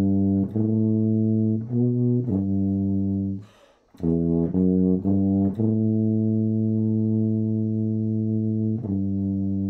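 Solo tuba playing a slow hymn melody in smooth, sustained low notes, with a quick breath about four seconds in and a long held note from about the middle.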